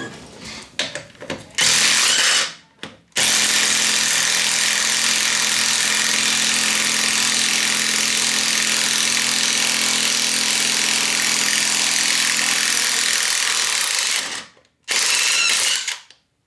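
Power drill running in spurts: a short burst, then a long steady run of about eleven seconds, then another short burst.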